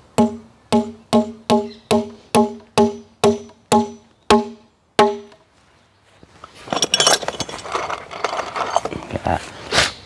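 A claw hammer drives nails through a steel concealed beam hanger into a glulam beam: about a dozen quick, even blows, each ringing with a short clear note, stopping about five seconds in. After a brief lull, a few seconds of rustling and metallic clinking follow.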